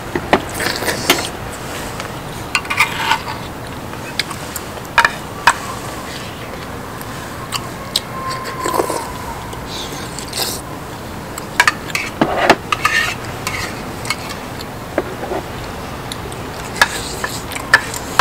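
Eating utensils clicking and scraping against dishes at irregular intervals, with short scraping bursts every few seconds over a steady background hiss.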